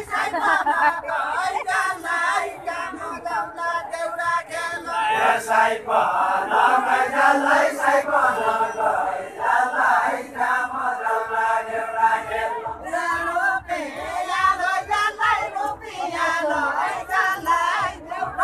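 A group of voices singing a Deuda folk verse together in a chant-like unison, unaccompanied, in the call-and-answer style of a Deuda khel.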